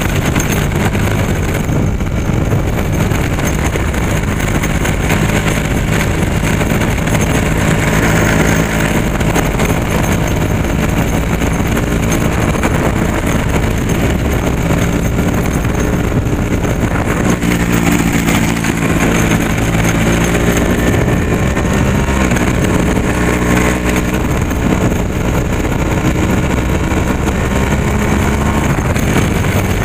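A road vehicle's engine running while driving, its pitch rising and falling with changes in speed, over a steady rumble of wind and road noise on the camera.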